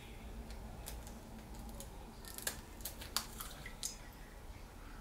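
Eggs being cracked and emptied into a bowl: a few faint, short clicks of shell and handling over quiet kitchen room tone.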